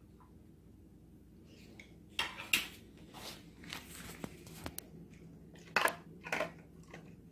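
Husky crunching dry dog food from a collapsible silicone bowl. The crunching comes in irregular bites with a few sharp clicks between them, loudest about two seconds in and again near the end.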